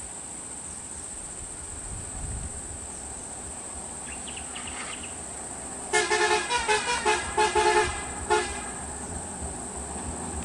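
Ashok Leyland bus's horn sounding a rapid run of short toots for about two seconds, starting about six seconds in, with one more toot shortly after. Under it runs a steady high drone of insects.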